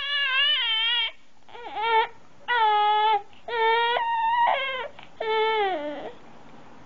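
A run of about six high, drawn-out cries, each under a second long, wavering in pitch with short gaps between them; the last one slides down in pitch.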